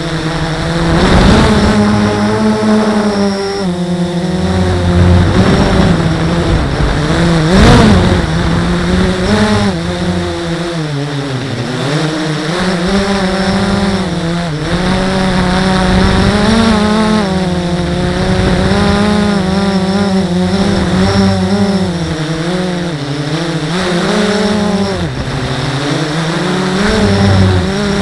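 Blade 350 QX quadcopter's four brushless motors and propellers buzzing, heard close up from the camera on board, their pitch rising and falling constantly with the throttle.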